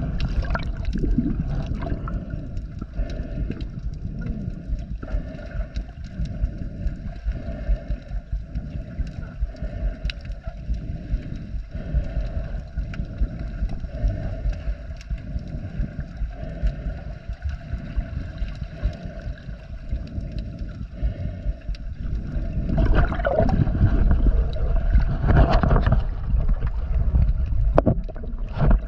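Muffled underwater rumble of water moving against a chest-mounted action camera's housing while snorkeling. It swells into louder rushing, gurgling water for the last several seconds.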